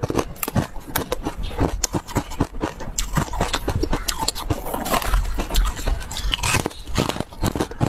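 Close-up crunching and crackling of frost-covered ice: fingers scraping through frost in a bowl, then biting and chewing a frosted piece. A dense run of sharp clicks throughout, loudest in the bite about five to six seconds in.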